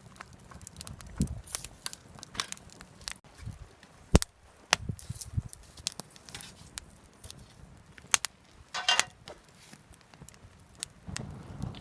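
Irregular clicks, knocks and crinkling rustles of things being handled, with one sharp knock about four seconds in and a brief rustle near nine seconds.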